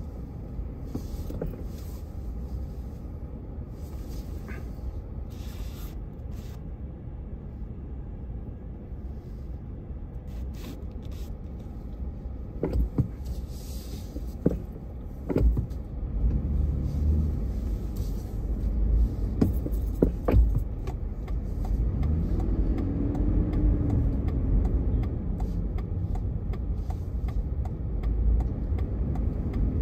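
Low rumble of engine and road noise heard from inside a car in slow city traffic. It grows louder about halfway through as the car pulls forward, with a few scattered knocks.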